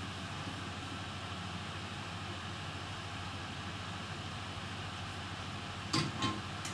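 Steady low hum and hiss of background noise, with two short clicks about six seconds in.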